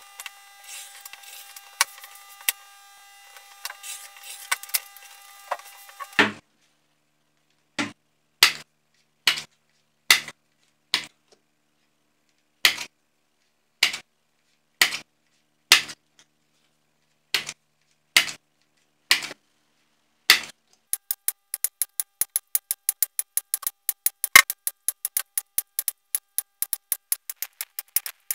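A handheld corner-rounder punch clicks sharply as it trims card corners. The clicks come one at a time, roughly one every second, then in a fast run of about six a second near the end. The first few seconds hold only a faint steady hum and light taps on a cutting mat.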